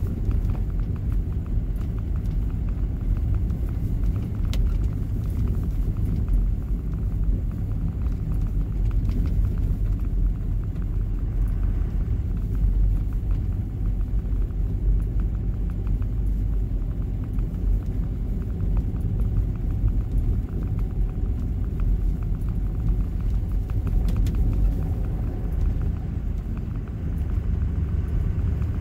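Steady low rumble of a vehicle driving on a snow-covered road, heard from inside the cabin: engine and tyre road noise, with faint scattered ticks.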